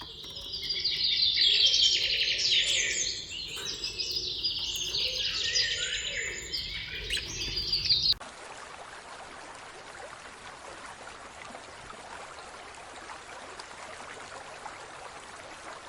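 Many birds chirping at once, a dense overlapping chatter of quick high calls; about eight seconds in it cuts off suddenly, leaving only a steady hiss.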